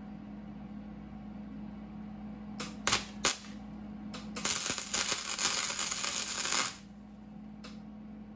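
Electric welding arc crackling and sputtering: a few brief starts around three seconds in, then a steady crackle for about two seconds that cuts off. A low steady hum runs underneath.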